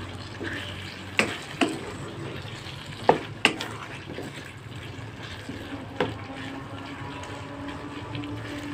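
A spatula stirring and scraping a thick fish and pea curry in a wok, the sauce sizzling steadily underneath, with a few sharp knocks of the spatula against the pan.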